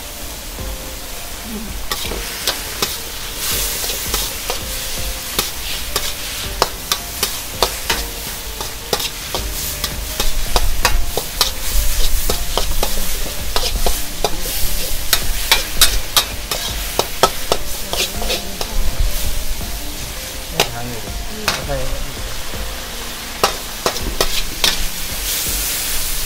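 Steel wok ladle scraping and clanking against a wok as a stir-fry of meat, onions and basil leaves sizzles over a gas burner. Frequent sharp clinks over a steady sizzle, louder and busier from about ten seconds in.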